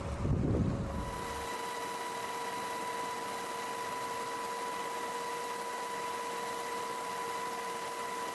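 Steady hiss with several thin, unchanging tones and a faint high whine, typical of electronic or recording noise rather than any sound of the scene. A low wind-and-wave rumble cuts out about a second in.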